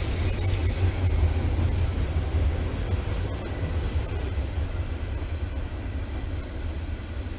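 Heavy, uneven low rumble of wind buffeting the microphone, with a steady hiss above it.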